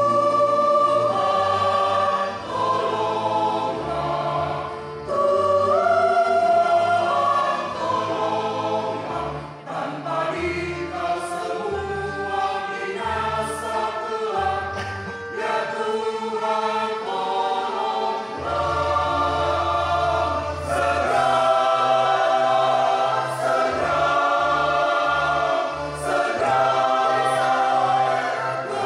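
Mixed choir of men's and women's voices singing a hymn in parts, sustained phrases with brief breaks between them.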